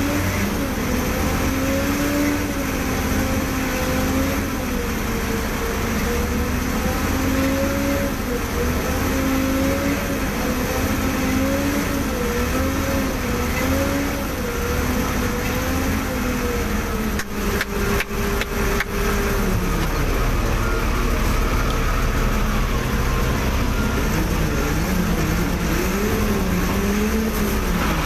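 Crane's diesel engine running under load, its pitch wavering up and down every second or so. About two-thirds through it drops lower, then climbs again, with a few short clicks just before.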